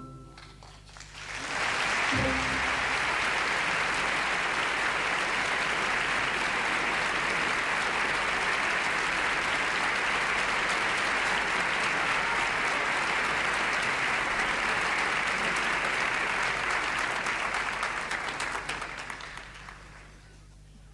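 Theatre audience applauding at the end of a ballet number. The applause swells within the first two seconds, holds steady, then dies away near the end.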